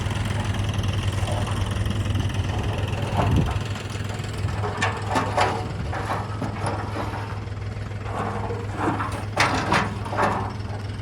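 Diesel engine of the backhoe loader or tractor idling steadily with a low hum. From about halfway through, short bursts of voices or clatter break in over it.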